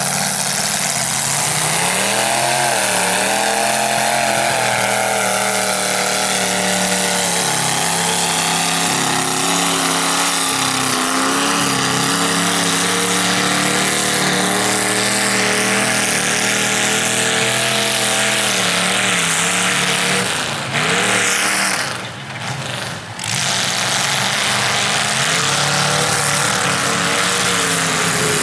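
Lifted home-built mud truck's engine revving hard through open exhaust stacks, its pitch rising and falling as the tires churn through the mud pit. The sound drops away briefly about three-quarters of the way through, then picks back up.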